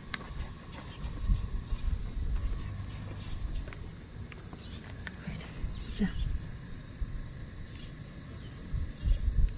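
Insects chirring steadily at a high pitch, with low gusty rumbling on the microphone coming and going.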